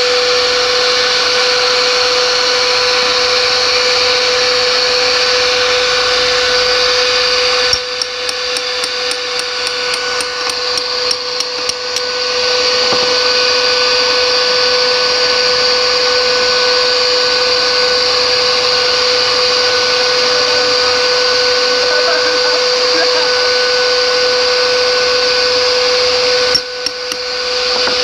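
Electric pipe-threading machine running steadily with a constant motor hum. Partway through, a rapid regular clicking runs for about four seconds, and a shorter burst of it comes near the end.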